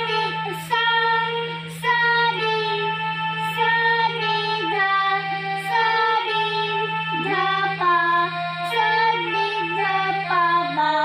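A child playing a slow melody note by note on a small toy electronic keyboard and singing along: sargam practice. A steady low hum runs underneath.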